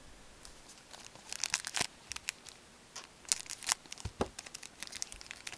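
Paper and cardboard handling as hockey cards are shuffled by gloved hands: short runs of crisp clicking and crackling, the heaviest about a second and a half in and again about three and a half seconds in.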